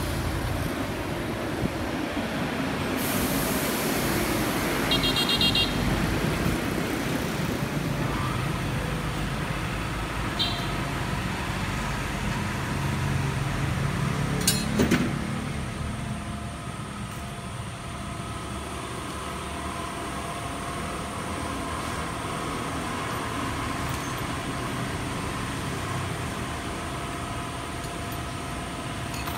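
Steady road-traffic rumble of passing vehicles, with a single sharp knock about fifteen seconds in.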